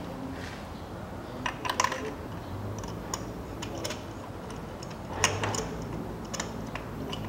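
Light, irregular metal clicks and clinks from a spark plug socket on an extension bar as it is turned by hand in the plug well, threading a new spark plug in. There are small clusters of clicks about one and a half seconds in and about five seconds in.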